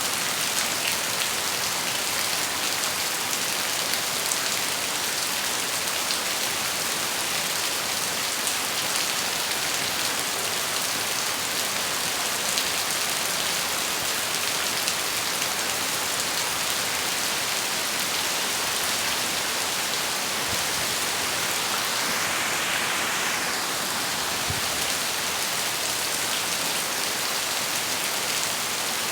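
Steady rain falling on a surface: a dense, even hiss flecked with the patter of individual drops, swelling slightly about two-thirds of the way through.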